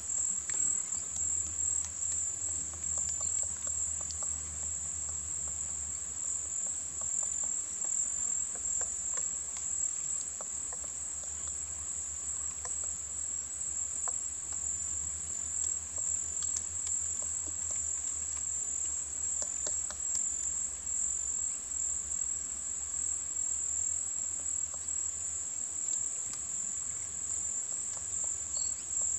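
Steady high-pitched drone of insects, like crickets or cicadas, with faint, scattered ticks and taps.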